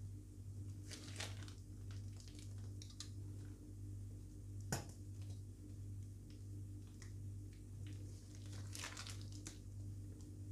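Disposable plastic piping bag crinkling and rustling in the hand as cream is squeezed out, over a steady low hum, with one sharp click a little before halfway through.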